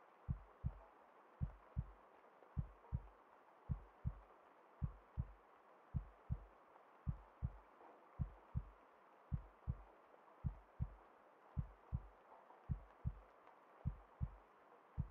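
Slow heartbeat, a steady lub-dub double thump repeating a little more than once a second, with a soft steady hiss behind it.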